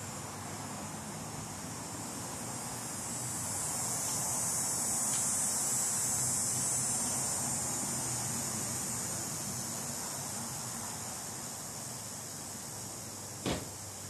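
Summer insects droning in a high-pitched chorus that swells for a few seconds and then fades back. A single sharp click comes near the end.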